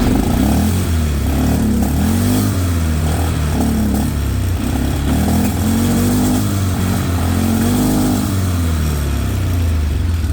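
2001 Polaris Sportsman 500 HO ATV engine being revved up and down about once a second. It now runs clean with no audible misfire, and the owner says the new handlebar switch seems to have fixed it.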